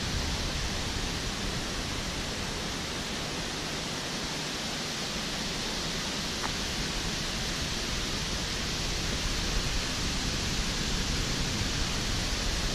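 Creek water rushing steadily over rocks and shallow riffles, an even hiss with no let-up.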